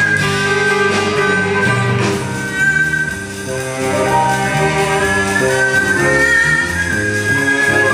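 Haegeum, the Korean two-string bowed fiddle, playing a melody of held, slightly bending notes, backed by piano, cello, drum kit and guitar in a live ensemble.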